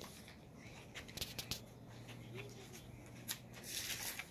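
Soft rustling and a few light clicks of handling as an air rifle is brought down and a person settles prone on a blanket behind it; a short burst of rustling comes just before the end.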